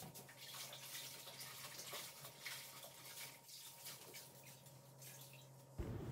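Faint water running from a tap, with scattered irregular splashes and drips; a louder low rumble comes in near the end.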